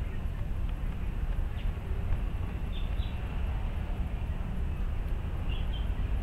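Steady low rumble of wind buffeting the microphone, rising and falling in level, with a few faint short high chirps scattered through it.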